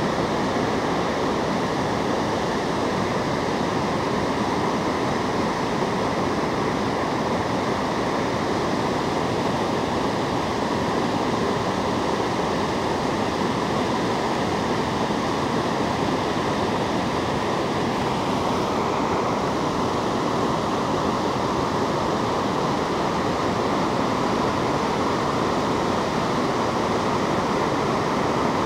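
Steelhead Falls, a wide waterfall on the Deschutes River, giving a steady rush of white water pouring over rock ledges into a churning pool.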